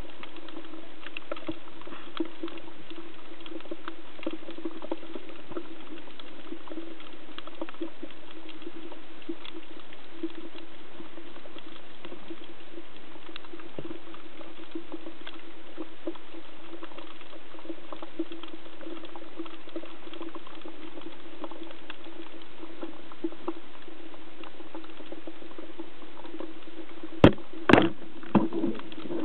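Underwater ambience heard through a camera housing: a steady low hum with a constant crackle of tiny ticks. Near the end, a band-powered speargun fires with one sharp, loud snap, followed by two or three smaller slaps as its rubber bands spring forward.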